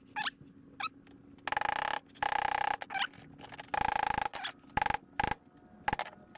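A hammer drives a steel bush into a VW Beetle front-suspension part held in a bench vise. There are three ringing metal-on-metal blows, then a few shorter, sharper taps near the end.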